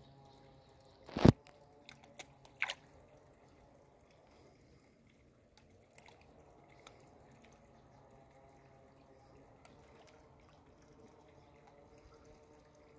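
Fish taking floating bread at the water surface: a loud, sharp slurping splash about a second in and a smaller one near three seconds, with a few faint drips between.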